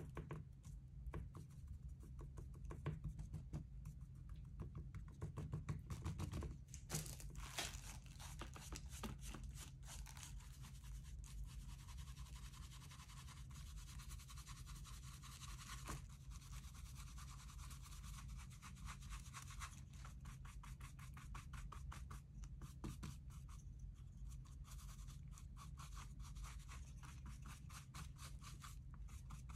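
Scratching and rubbing from hand work on a surface, with scattered small clicks, turning into a fast continuous scratching in the middle, over a steady low hum.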